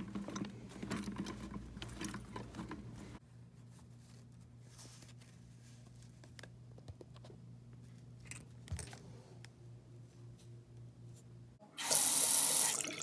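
Small metallic clinks and clicks of brass faucet cartridges and a hex key being worked on a faucet handle. About twelve seconds in, the bathroom sink faucet is opened and water runs strongly from the spout into the basin, a test run after the repair.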